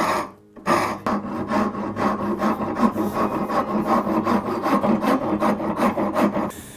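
Hand rasp scraping hardwood for a screwdriver handle scale: two separate strokes, then quick short strokes at about four a second that stop near the end.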